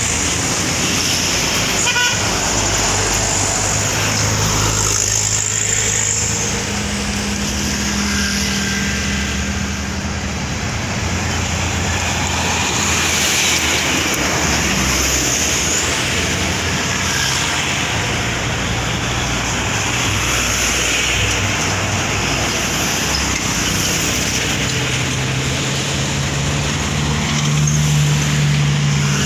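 Road traffic: vehicles, trucks among them, running and passing, with low engine drones that swell and fade.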